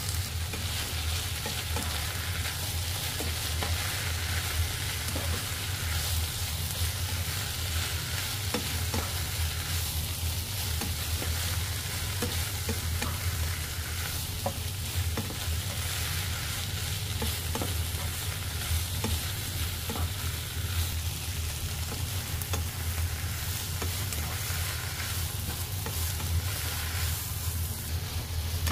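Julienned vegetables and chicken stir-frying in a nonstick frying pan: a steady sizzle, with the spatula scraping and tapping against the pan at scattered moments as the food is turned, over a steady low hum.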